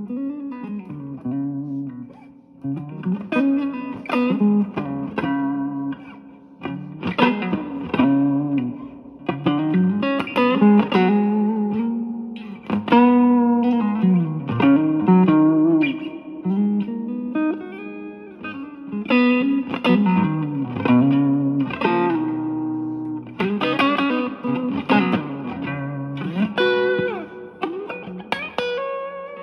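A Stratocaster-type electric guitar with three single-coil pickups, played through a Yamaha THR10C modeling amp set to its Mini amp model. It plays melodic single-note phrases with frequent string bends.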